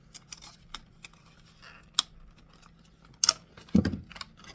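Light clicks, taps and rustles of small items and their packaging being handled, with a few louder knocks near the end.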